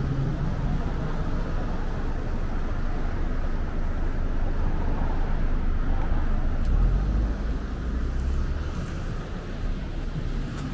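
Outdoor city ambience of steady traffic noise, with a deep low rumble swelling about two-thirds of the way through.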